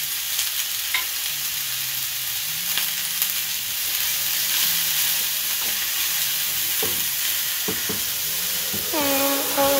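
Sliced peppers, courgette and onions sizzling in hot oil in a nonstick frying pan while being stirred and turned with a silicone spatula, with a few light clicks of the spatula against the pan.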